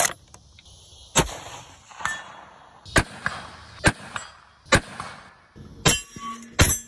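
Lee-Enfield No. 4 Mk I .303 rifle being fired at steel targets: a run of sharp shots and metallic hits, roughly one a second. A struck steel plate rings near the end.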